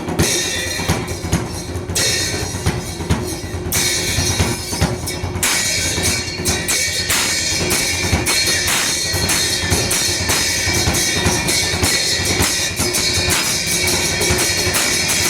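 Music with a drum kit playing a steady, driving beat.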